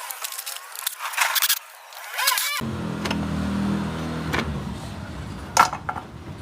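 Light metallic clicks and scraping of hand work on a scooter's opened belt transmission, then, about two and a half seconds in, the scooter engine is heard running steadily at idle, with a sharp knock near the end.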